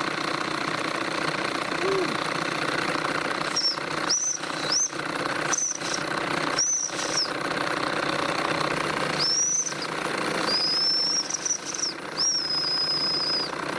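Live steam model locomotive whistle giving a run of short, high toots, then two long held blasts near the end, over the steady hiss of the running engine.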